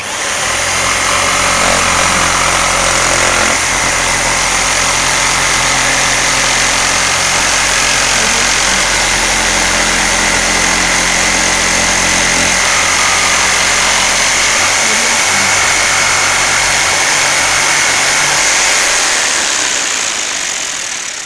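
Electric jigsaw sawing through a wooden pole, its motor and blade running steadily with a constant high whine. The sound starts abruptly and tapers off near the end.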